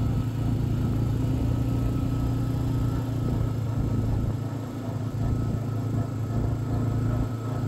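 Car driving along a road, heard from inside the car: a steady low hum of engine and road noise.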